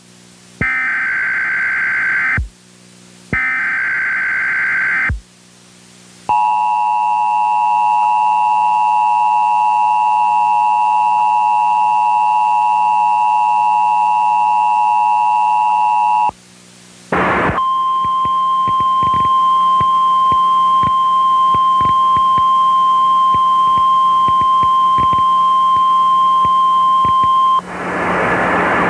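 Emergency Alert System alert: two short screeching bursts of SAME digital header data, then about ten seconds of the two-note EAS attention signal, a brief gap, and about ten seconds of a single steady warning tone. A rush of static hiss comes in near the end.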